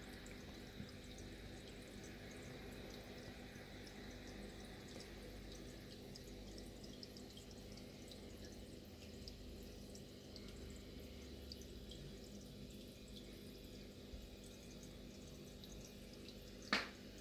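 Faint aquarium water trickling and dripping, with scattered small ticks over a steady low hum. A single sharp click near the end.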